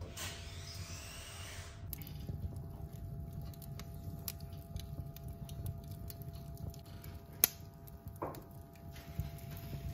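Wood fire crackling in a cast iron stove: scattered small snaps over a low rumble of flames, with one sharp pop about seven and a half seconds in.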